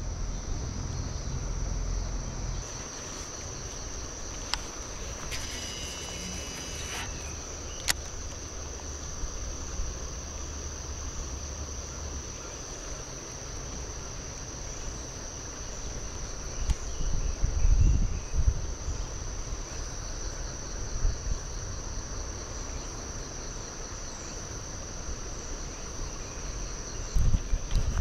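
Steady high-pitched drone of insects calling in the lakeside trees, with a few low rumbles about two-thirds of the way through.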